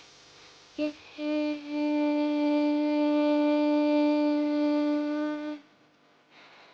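Background music: a short note, then one long steady note held for about four seconds that cuts off sharply. It sounds like a bowed string such as a violin.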